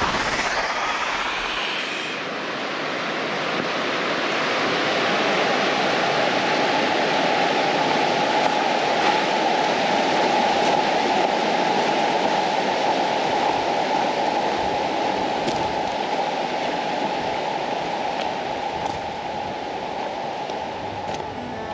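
A shallow stream running over stones and gravel: a steady rush of water.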